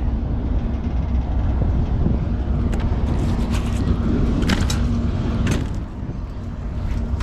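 Wind buffeting the microphone over the steady drone of an idling engine, which fades about six seconds in. A few sharp clicks come from the magnet and its hooked catch being handled.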